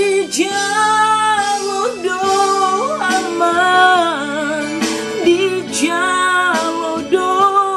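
A woman singing a Batak-language song in long, held notes with vibrato and slides between pitches, over a backing music track.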